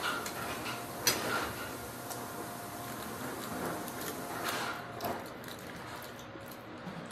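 Eating sounds: a person chewing and picking apart fried fish with his fingers on a foil-lined plate, with scattered small clicks and crackles, the sharpest about a second in.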